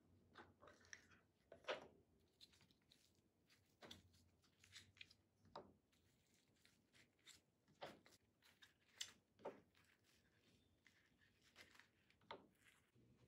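Faint handling sounds of skateboard speed bearings: a metal bearing tin is opened, and the bearings are pulled from their foam insert and set down one by one on a mat. The result is scattered light clicks and short rustles, the sharpest click about two seconds in.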